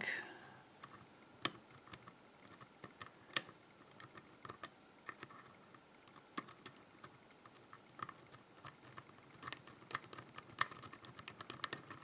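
Hook pick and tension wrench working inside a Trelock five-pin euro cylinder: scattered faint metallic clicks and ticks as the hook probes the pins for feedback, with two sharper clicks in the first few seconds and a quicker run of faint ticks near the end.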